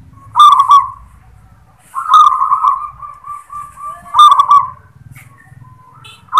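Zebra dove (perkutut) singing its 'klar–ketek–kuk' phrase three times, about two seconds apart; each phrase opens with crisp clicking notes and runs into a rolling coo, the middle one the longest.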